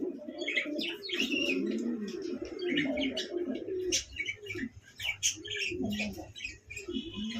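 Domestic fancy pigeons cooing, a string of low coos that rise and fall, packed close in the first few seconds and more spaced out later, with higher chirping calls over them through the first half.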